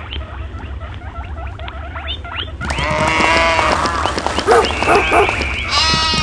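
Animal stampede sound effect: many animals calling at once, with short rising cries and several longer pitched calls, over a steady low rumble.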